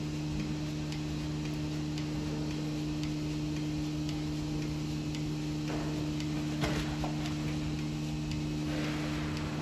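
Milking-machine pulsators ticking about once a second over a steady machine hum, with a couple of brief knocks and shuffles about six and nine seconds in.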